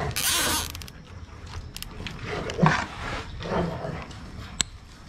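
A nylon zip tie is pulled tight through its ratchet with a short rasp in the first second. Then a dog growls twice in the middle, and a sharp snip comes near the end as side cutters trim the tie's tail.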